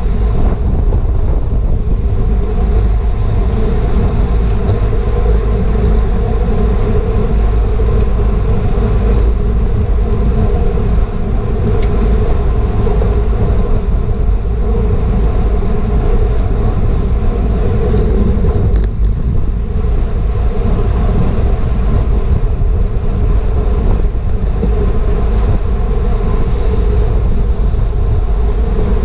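Loud, steady wind rush on a GoPro's microphone riding a road bicycle at racing speed, mixed with tyre and road noise. There is a brief double click about two-thirds of the way through.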